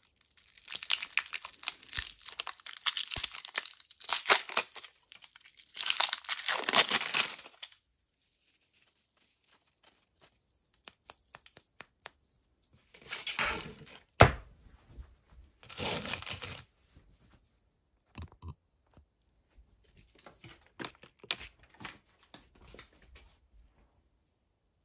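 Clear plastic film being torn and peeled off a toy bar, crinkling in several bursts. There is one sharp click about halfway through, then scattered light taps as the bar is handled.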